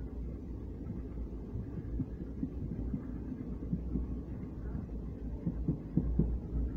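Low running rumble of a moving train heard from aboard a coach, with a few sharper knocks near the end.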